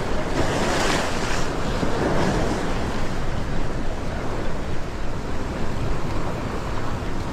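Ocean swell washing over rocks, with wind buffeting the microphone; the wash swells loudest in the first two and a half seconds.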